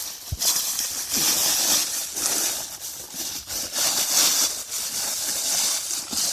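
Crinkling and rustling of a Blizzard Survival Bag's mylar-like Reflexcell sheeting as a person crawls into it, in irregular loud swishes, with a low thump about a third of a second in.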